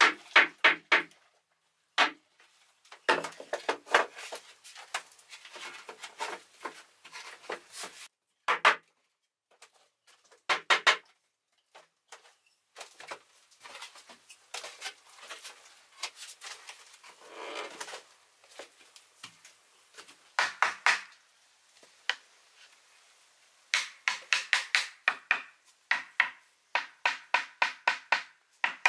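Wooden knocking and clattering as bamboo slats are fitted and tapped into place with a wooden mallet, with some scraping midway and a quick run of repeated strikes in the last few seconds.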